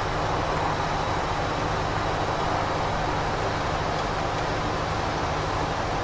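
Steady rumbling, hissing outdoor noise with no distinct events standing out.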